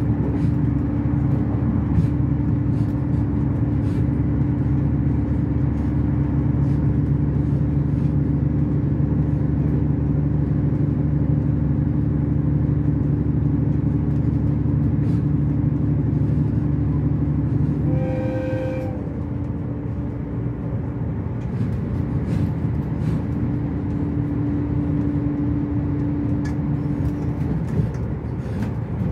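Running noise inside the cabin of a Resort Asunaro HB-E300 hybrid diesel-electric train: a steady rumble with a low engine and motor hum, and faint clicks from the rails. A little past halfway the train gives one short horn blast lasting about a second. After the horn the hum eases for a few seconds, then picks up again.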